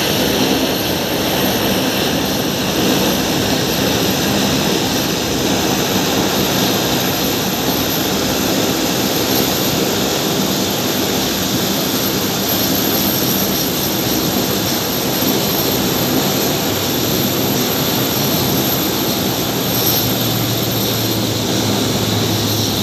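Engines of a De Havilland Canada Dash 8-400 turboprop running with propellers turning: a loud, steady drone and rush of engine noise with a low hum underneath.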